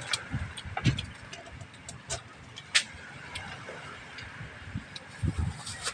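Shells clicking and knocking against each other as freshly gathered scallops are handled and opened with a knife: a few short sharp clicks, with some low thuds near the end.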